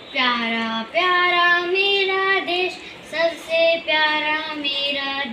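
A young boy singing solo, holding long notes in three phrases with short breaks between them.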